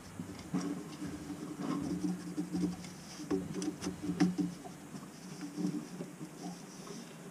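Marker squeaking and scratching on a drain pipe in short strokes as a cut line is marked, with a few light clicks from handling the pipe.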